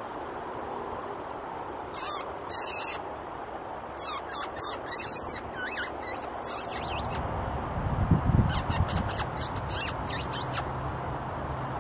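Squeaking that imitates a distressed mouse, used to call a weasel in. It comes as several groups of very high-pitched squeaks, with a low rumble underneath in the second half.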